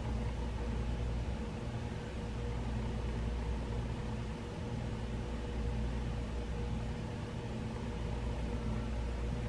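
Steady low hum with faint steady tones over an even hiss: room tone, with no distinct event.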